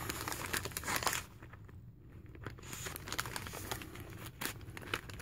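Plastic MRE entree pouch and flameless ration heater sleeve crinkling and crackling in short, irregular bursts as hands squeeze and feel it.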